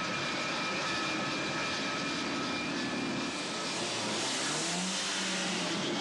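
Jet engines running: a steady rushing noise with a thin high whine. A rising whine comes in over it near the end.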